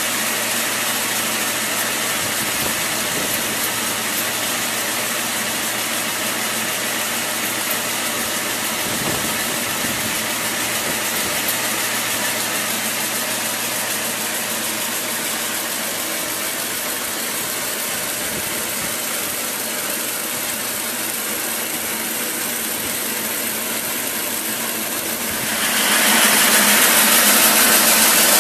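Large band sawmill running steadily, a constant mechanical noise with a low hum. About two and a half seconds from the end it turns louder and harsher as the band blade cuts into a timber.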